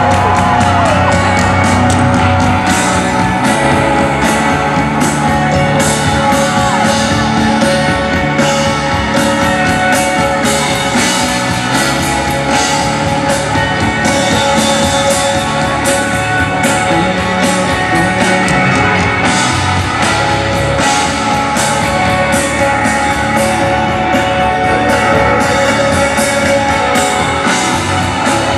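Live rock band music with a drum kit keeping a steady beat under sustained instrument tones.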